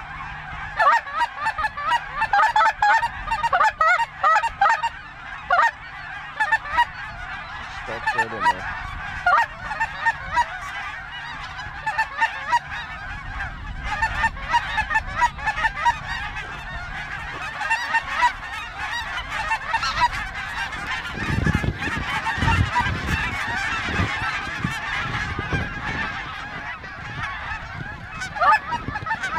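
A large flock of snow geese calling overhead: a dense, continuous chorus of many overlapping high-pitched calls. About three quarters of the way in, low rumbling thumps sound beneath the calls for a few seconds.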